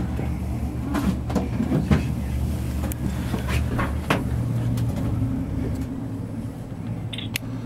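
Steady low rumble of a cable car gondola travelling along its cable, heard inside the cabin, with scattered light clicks and knocks. The rumble eases somewhat about six seconds in.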